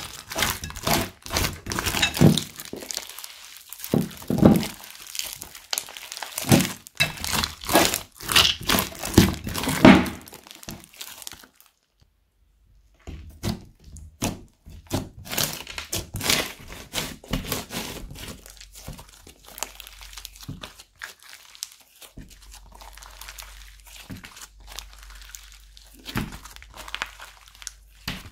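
Slime mixed with kinetic sand squeezed and kneaded by hand, making a dense run of sticky clicks and pops. A short silent break comes near the middle, after which the pops are quieter and sparser as the slime is pressed and stretched on a table.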